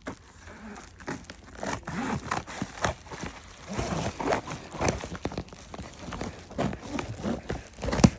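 Packaging crinkling and rustling as it is handled and opened, with irregular crackles and light knocks, and one sharper knock near the end.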